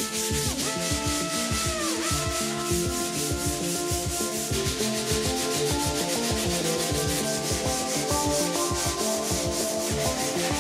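Hand sanding: sandpaper on a sanding block rubbed back and forth over a primed fibreglass car body panel in quick, even strokes.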